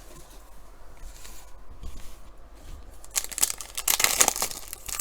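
Foil trading-card pack wrapper being torn open and crinkled, a loud burst of crackling that starts about three seconds in after quieter handling.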